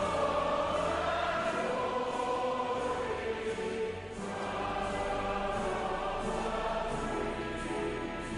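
Choral music: a choir singing slow, held notes, with a brief dip and change of chord about four seconds in.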